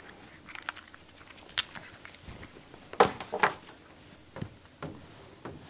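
Scattered small clicks and taps of cable and plastic parts being handled as an mAs probe's lead is plugged into the USB port of an RTI Mako meter base unit. A few sharp knocks stand out, the loudest about three seconds in.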